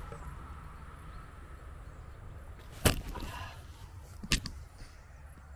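Two sharp snaps about a second and a half apart from a fishing line pulled hard on a lure snagged in a tree, the sound of the line breaking off and the bait being lost. A steady low rumble runs beneath.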